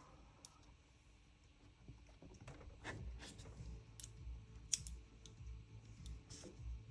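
Faint, irregular clicks and taps of small metal and plastic parts and a screwdriver being handled on an airsoft gun's trigger housing during disassembly.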